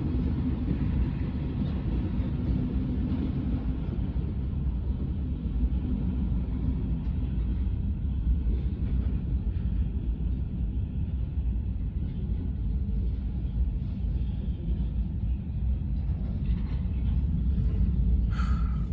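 CSX local freight train rolling past, its railcars making a steady low rumble.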